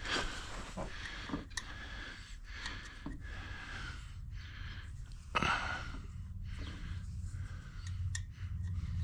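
Scattered small clicks and taps of metal parts being handled while a shaft key is fitted into a pressure-washer pump, over a low steady hum. A breathy sigh about five seconds in.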